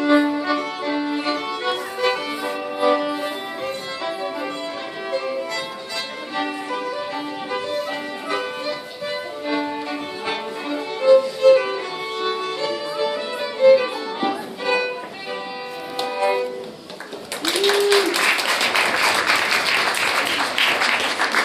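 Fiddle music playing a folk-dance tune. It stops about seventeen seconds in and gives way to audience applause.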